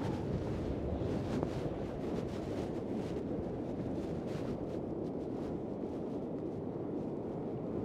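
Strong wind buffeting the microphone over the steady wash of surf breaking on a beach.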